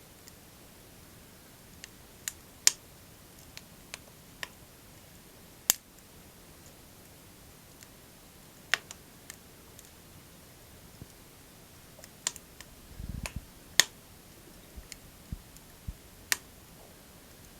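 Wood fire burning in a small wood stove, crackling with sharp irregular pops over a faint steady hiss, with a brief low rumble about two-thirds of the way through.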